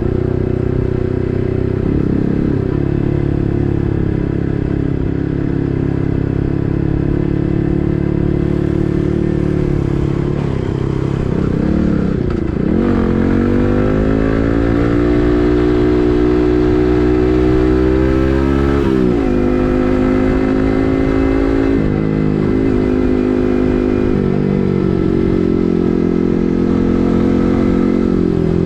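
Yamaha MT-15's 155 cc single-cylinder engine through an SC Project full-system exhaust, running at a steady cruise while ridden. About halfway through, the revs climb steadily for several seconds, then drop off sharply, and the engine settles back to a steady run.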